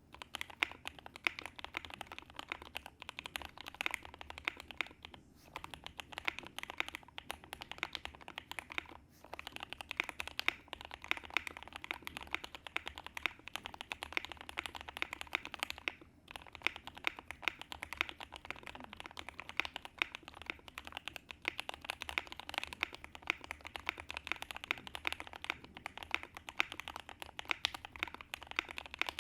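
Continuous typing on a KBD75 V3.1 mechanical keyboard with lubed Gateron CJ linear switches on an aluminium plate, with plate foam and polyfill inside. A steady stream of key clacks with a few brief pauses.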